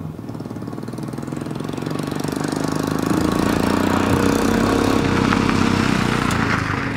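Royal Enfield Himalayan's single-cylinder engine approaching and riding past close by. It grows louder as the bike comes near, is loudest around four to six seconds in, and begins to fade near the end.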